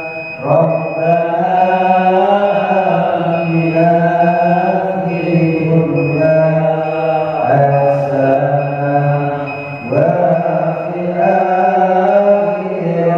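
A man chanting an Islamic devotional litany (dhikr) into a microphone: four long melodic phrases, each drawn out on sustained notes and starting about every three seconds.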